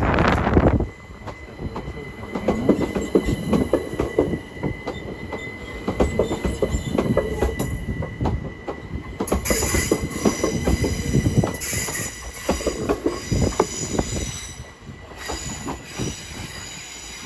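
Class 387 electric multiple unit running slowly through the station, its wheels clicking over the rail joints and points. A loud burst comes in the first second, and from about halfway through the wheels add a high flange squeal.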